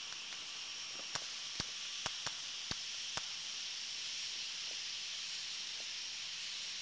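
Distant fireworks going off: six sharp pops in quick, uneven succession over about two seconds in the first half, over a steady high hiss.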